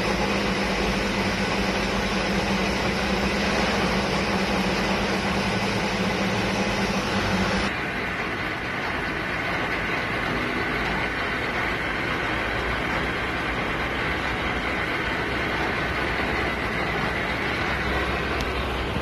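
Metal lathe running steadily while turning a steel bar, a constant mechanical whir with a low hum underneath. About eight seconds in the hum stops abruptly, and the running noise becomes a little quieter and duller.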